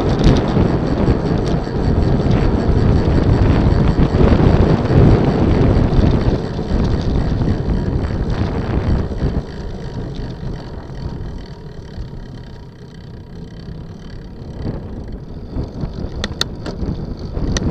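Wind buffeting the microphone of a bicycle-mounted camera at riding speed, a steady low rumble. It is loud at first, eases off about halfway through, and picks up again near the end, with a few sharp clicks.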